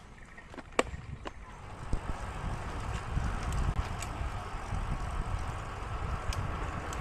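Wind rumbling on the microphone while cycling, growing louder about two seconds in, with a couple of sharp clicks near the start.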